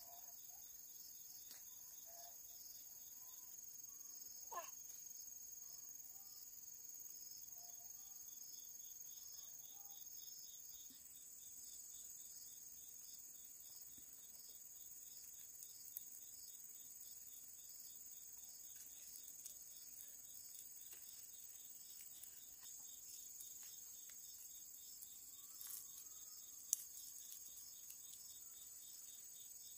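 Insects chirring in a steady high chorus, with a rapid pulsing chirp running through it. A few faint clicks come on top, with one sharper snap near the end, as if twigs are being handled.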